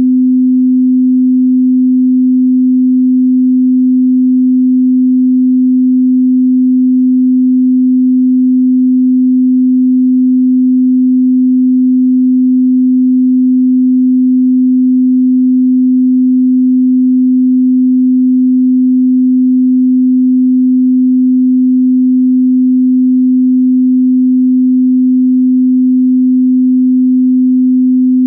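A steady, loud 255 Hz pure sine tone, one unbroken low hum with no overtones, of the kind used as a test tone for calibrating sound systems and instruments.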